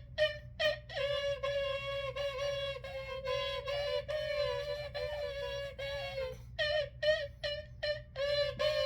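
Dual pipes, a wind instrument, blown in a string of notes that mostly hold one fairly high pitch, with short breaks between them. The pitch sags about six seconds in, and then come several short, choppy notes before a longer one near the end.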